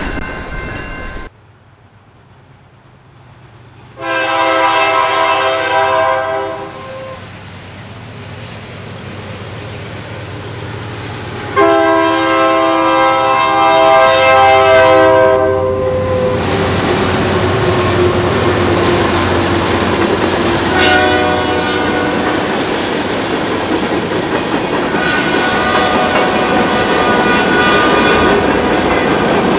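Diesel freight locomotive horn: a long blast, then a longer one about seven seconds later, from a CN freight led by a GE C40-8. The train then rolls past with a steady rumble and the clickety-clack of wheels over rail joints.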